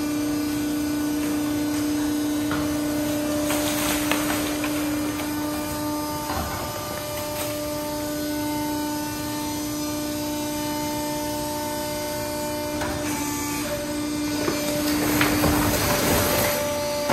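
Hydraulic knuckle-boom grapple crane working, its hydraulic power unit giving a steady hum made of several tones; a second, higher tone joins about five seconds in. Near the end comes a louder burst of rustling and clatter as the grapple drops a load of bagged waste into the concrete bin.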